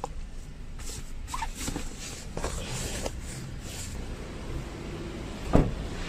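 Rustling and a few light clicks of someone getting out of a car, then one heavy thump about five and a half seconds in, a car door being shut.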